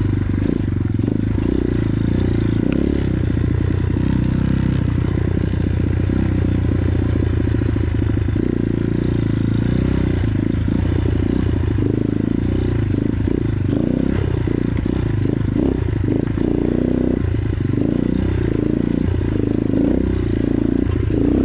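X-Pro Titan 250cc dirt bike's single-cylinder four-stroke engine running under way at a fairly steady throttle while riding a dirt trail.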